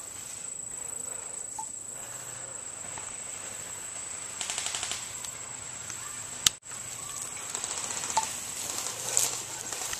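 Airsoft guns firing short rapid full-auto bursts of clicks, with one sharp loud crack about two-thirds of the way through, over a steady high insect drone.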